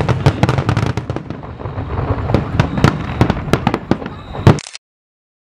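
Fireworks display: aerial shells bursting in a dense, irregular run of bangs and crackles, with one of the loudest bangs just before the sound cuts off abruptly about four and a half seconds in, leaving silence.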